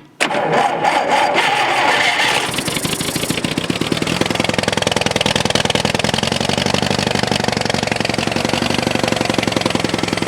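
Old John Deere tractor's four-cylinder engine starting: it catches right away, runs loud and uneven for the first couple of seconds, then settles into a steady run. Its owner says the engine seldom fires on all four cylinders and usually runs on three or two, which he puts down to low coil voltage.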